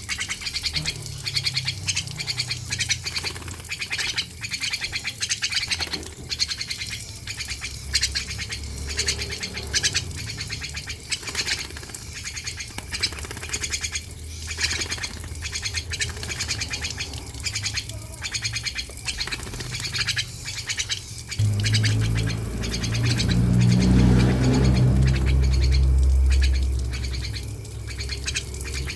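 Starling chattering and squawking in quick runs of harsh notes. A low steady hum underneath grows louder about 21 seconds in and eases off near the end.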